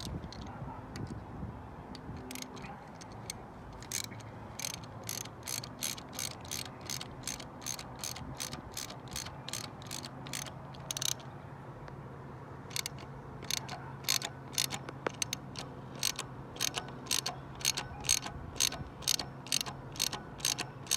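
Hand ratchet clicking as new lift bolts are run in and snugged up by hand on a Toyota 2ZZ-GE engine. The clicks come in scattered short runs at first, then steadily at about two to three a second in the second half.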